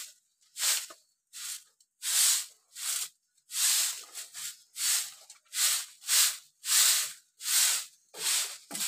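Hill myna making a run of short, breathy hisses, about a dozen of them evenly spaced at roughly one and a half a second.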